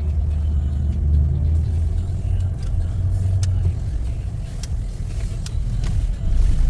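Car cabin noise while driving: a steady low road and engine rumble, heaviest in the first few seconds, with a few light clicks.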